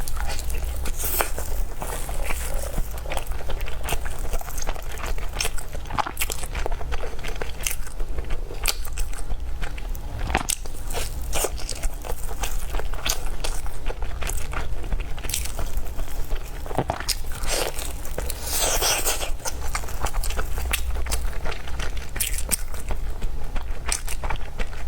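Close-miked eating: a person biting and chewing food, with many quick wet clicks and crackles from the mouth and a denser flurry about three quarters of the way through, over a steady low hum.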